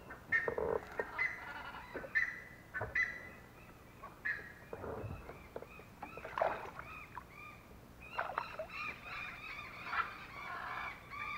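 Wild birds calling: many short, repeated calls that overlap and grow thicker in the second half.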